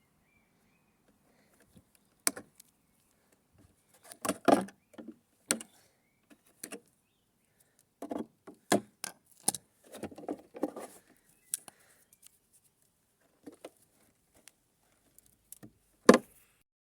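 Scattered clicks, knocks and rattles of a battery charger's small parts being handled while it is taken apart by hand, coming in short clusters with pauses between and one sharp knock near the end.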